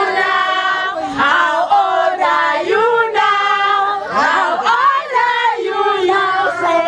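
A group of women singing together loudly, with several voices holding and bending notes.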